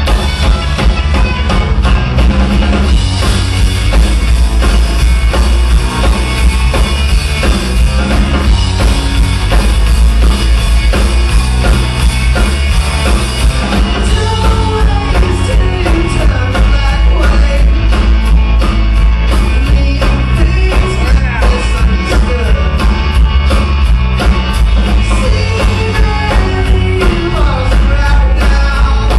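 Live indie rock band playing loudly, with drum kit, electric guitar and singing, heavy in the bass and with a steady beat of cymbal strokes.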